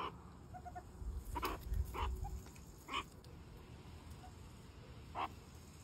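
Short, high-pitched animal calls, about five of them at irregular intervals, each very brief and faint.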